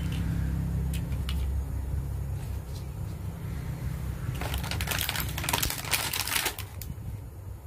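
Small plastic toy vehicles clicking as they are set down on a tabletop. About four and a half seconds in comes a couple of seconds of dense crinkling as the plastic blister packaging is handled, over a steady low hum.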